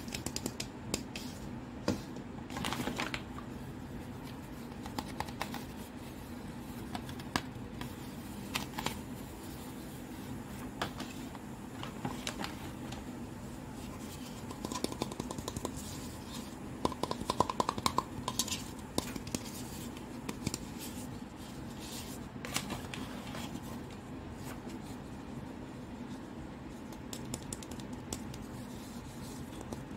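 Hands handling hollow plastic toy fruits and their cellophane wrapping: scattered light clicks, taps and scratchy rustles, busiest about two-thirds of the way through, over a steady low hum.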